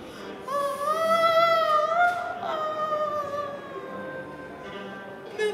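A single long held note, wavering slightly in pitch, that fades away over its last couple of seconds.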